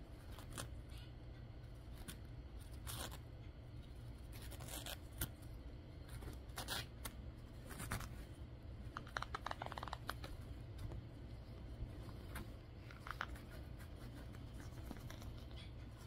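Quaker parrot tearing and shredding tissue paper with its beak: soft, irregular rips and rustles, busiest a little past the middle.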